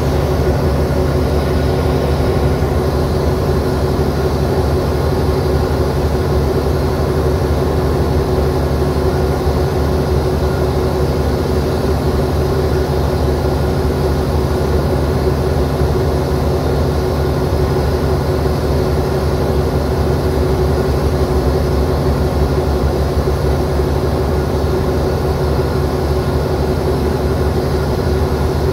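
Alsthom AD24C diesel-electric locomotive idling at a standstill, a steady heavy engine drone that holds the same pitch throughout.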